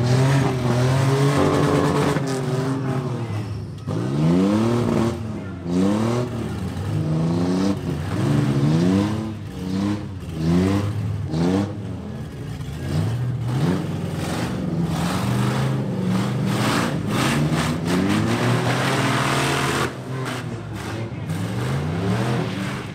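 Demolition derby pickup truck engines revving hard, their pitch rising and falling over and over, about once a second, as the trucks drive back and forth to ram each other.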